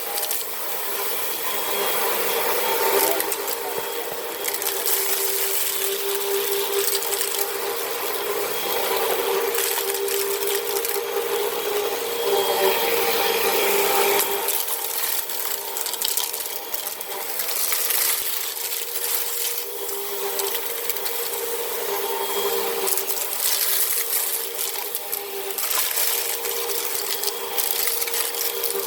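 Hoover vacuum cleaner running steadily, its motor humming under a high rushing hiss, with sand and debris rattling and crackling as they are sucked up.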